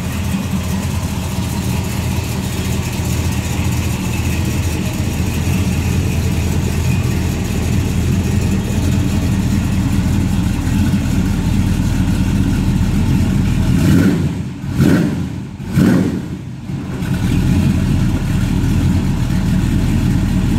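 A 1956 Chevrolet 210's engine idling steadily, with two brief surges about two-thirds of the way through.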